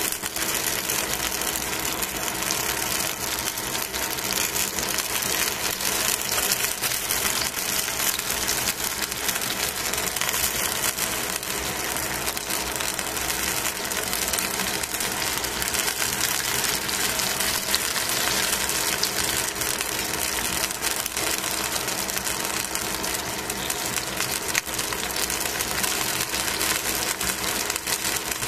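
Chicken wings frying in a stainless steel pan: fat sizzling and crackling in a dense, steady spatter of small pops, with a steady hum underneath.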